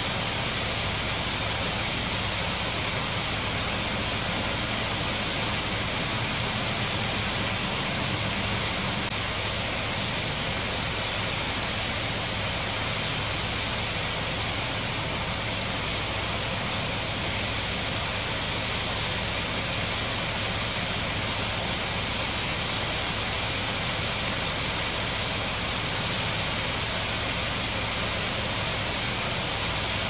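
Water pouring over a dam as a waterfall: a steady, unbroken rush.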